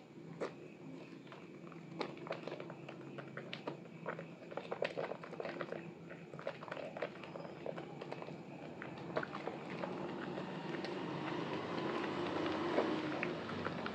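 Wet squelching of a water-soaked bar of soap being squeezed and kneaded by hand in thick lather, full of small crackles. It grows louder and busier near the end.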